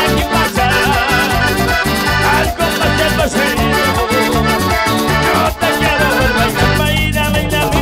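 Live band music without singing: a lead melody over a strong bass line and a steady, even percussion beat.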